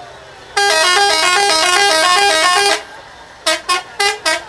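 Scania truck's Italian musical air horns playing a loud, quick run of notes stepping up and down for about two seconds. After a short gap, a string of short separate toots starts about three and a half seconds in.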